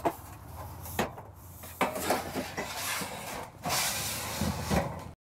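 Corner braces of a pop-up camper being stacked and slid in under the kitchen table: a few sharp knocks, about a second apart early on, amid scraping and rubbing that gets louder near the end. The sound cuts off suddenly just before the end.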